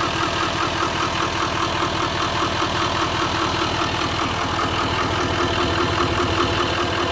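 L5P Duramax 6.6-litre V8 turbo-diesel idling roughly with a regular pulsing beat. It is misfiring on cylinder 4 because a failed injector connector pigtail is not making contact.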